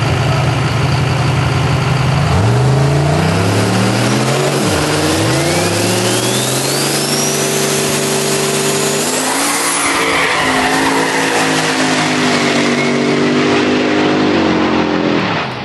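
Chevrolet Silverado pickup's engine idling, then revved hard in a burnout with its rear tyres spinning and squealing. The revs climb about two and a half seconds in, dip once, then climb again and hold high. They fall away just before the end.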